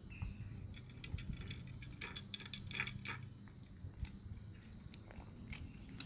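A cat crunching dry kibble: irregular crisp clicks of chewing, thickest about one to three seconds in, over a low steady hum.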